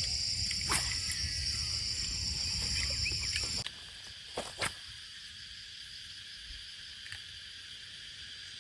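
Insects chirring steadily, a continuous high-pitched buzz, over a low rumble; about three and a half seconds in, the rumble stops and the chirring drops quieter, and two short sharp clicks follow about a second later.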